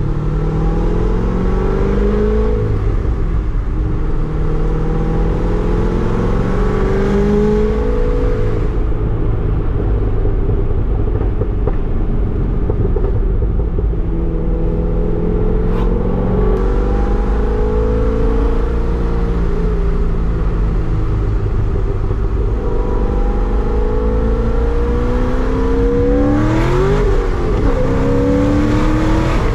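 2008 Corvette Z06's 7.0-litre LS7 V8 heard from inside the cabin on the move, its engine note climbing and dropping back several times as the car accelerates through the gears, over a steady road rumble.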